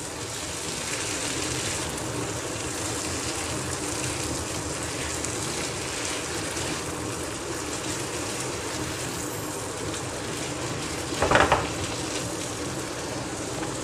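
Boneless chicken pieces sizzling steadily as they fry in oil and butter in a pan, stirred and turned with a spatula. A brief louder clatter comes about eleven seconds in.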